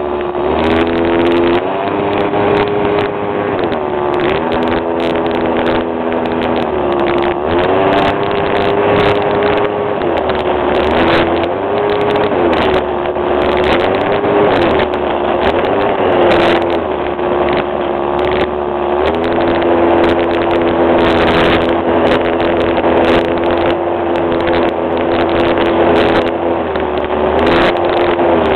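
Radio-controlled model airplane engine running in flight, heard close up from on board. Its pitch dips and comes back up again and again with throttle changes, over a steady rush of noise.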